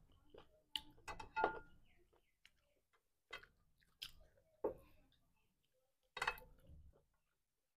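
Close-miked eating sounds of rice and curry eaten by hand: a handful of separate sharp mouth smacks and chewing clicks, with fingers scraping steel plates, between quiet gaps.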